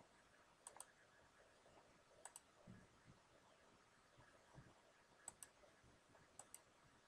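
Faint clicks of a computer mouse button: four pairs of short, sharp clicks at irregular spacing, with a couple of soft low thumps between them.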